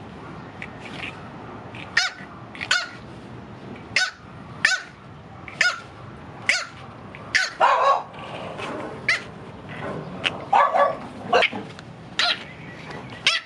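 Blue French bulldog puppy, eight weeks old, barking in a string of short, high yaps, about one or two a second. Two longer, fuller barks come around the middle.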